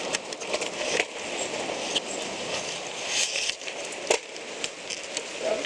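Bicycles pushed and feet stepping over loose rocks and gravel: irregular crunches and clicks with a few sharper knocks, about a second in and again about four seconds in, over a steady hiss.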